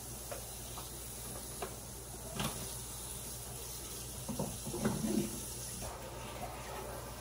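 Kitchen tap running into the sink as spinach is rinsed under it, with a few light knocks about halfway through.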